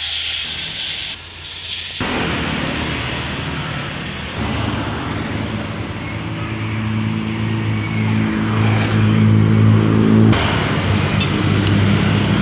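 Street traffic with motorbikes riding past close by, their small engines running steadily from about four seconds in. At the very start, a short hiss of oil heating in a wok.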